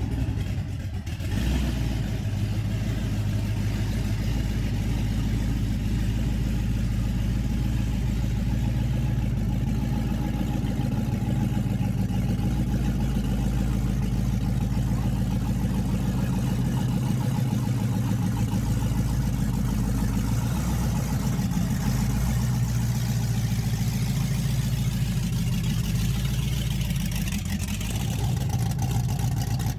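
Car engine running steadily, a low, even drone that shifts a little in pitch, with a brief dip about a second in.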